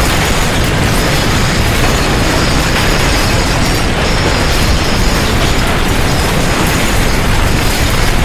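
Loud, continuous rumbling and rattling of simulated earthquake shaking, a dense noise with no let-up.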